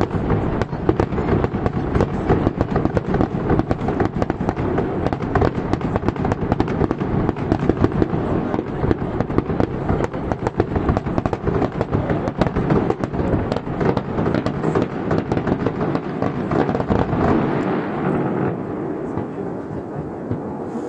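Aerial fireworks going off in a dense, rapid barrage of overlapping bangs and crackle. The crackle thins near the end.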